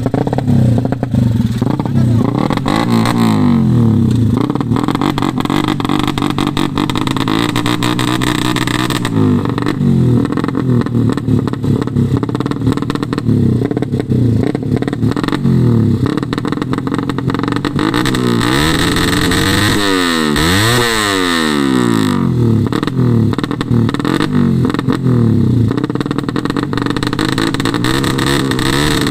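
Ported Suzuki Satria FU motorcycle engine revving hard, its pitch climbing and falling over and over with the throttle. About two-thirds of the way through the revs drop away and sweep back up.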